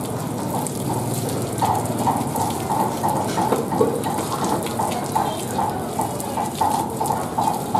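Water gushing from a hose over a whole scraped goat carcass, splashing onto the table and running off into a basin below, with an uneven pulsing splash from a couple of seconds in.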